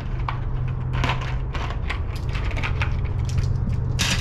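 Small clicks and light clinks of lightweight aluminium air fittings and their packaging being handled, with one louder click near the end, over a steady low rumble.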